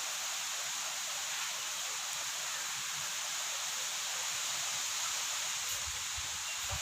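Steady rushing hiss of wind through trees and leaves before rain, even throughout, with a few faint low thumps near the end.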